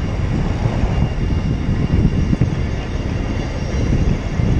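Wind buffeting the microphone of a camera moving along at riding speed: a steady, irregularly fluttering low rumble.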